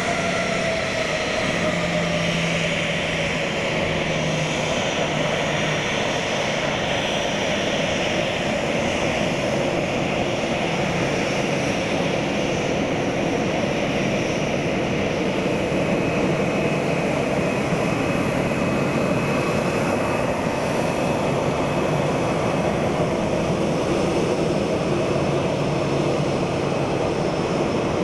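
Boeing 737-800's two CFM56 turbofan engines running as the airliner taxis, a steady jet whine over a rumble.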